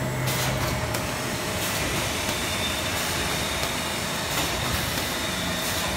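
Roll garbage bag making machine running: a steady mechanical clatter of its rollers, sealing and cutting stations, with a faint steady hum and a few sharp clicks.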